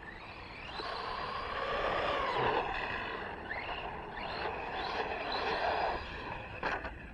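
Arrma Granite 4X4 RC truck being driven: its electric motor and drivetrain whine rises and falls with the throttle over the noise of tyres on the ground. It is loudest in the middle and ends with a couple of sharp ticks.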